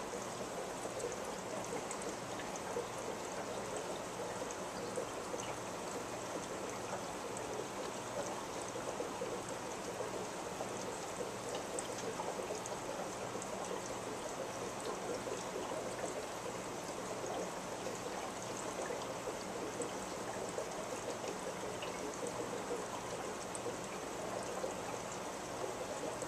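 Aquarium filter running: steady trickling, bubbling water with a low hum underneath.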